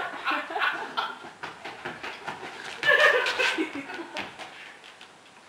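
Laughter in quick repeated bursts, then another burst of laughter about three seconds in, dying away toward the end.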